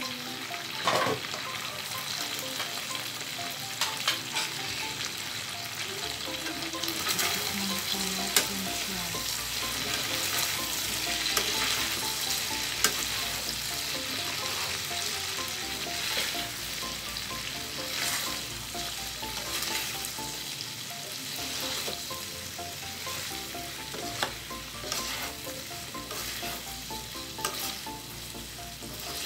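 Pork and vegetables sizzling in a wok while a wooden spatula stirs and scrapes through them, with occasional sharp knocks of the spatula against the pan.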